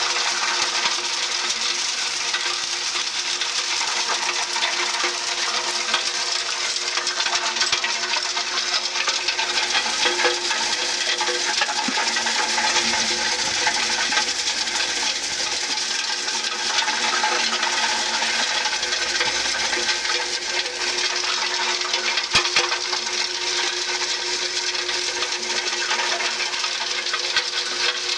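Q-Sage 10×24 debearder running steadily, its rotating center beater bar knocking dishwasher pods out of their packets as they are fed in: a steady mechanical hum with dense rattling throughout, and one sharp click late on.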